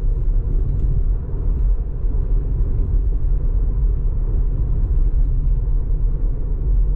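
Steady low rumble of tyre and road noise inside the cabin of a Tesla Model 3 cruising at about 80 km/h; as an electric car it has no engine note, only the rolling tyres and passing air.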